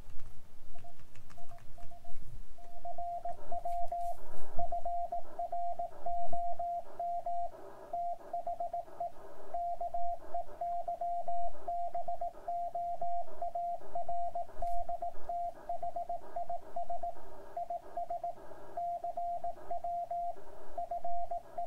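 Morse code sidetone from an ICOM IC-7610 transmitting CW: a single steady-pitched tone keyed on and off in dots and dashes, starting about a second in. It is keyboard-typed text being sent from the computer over a USB cable, with break-in enabled.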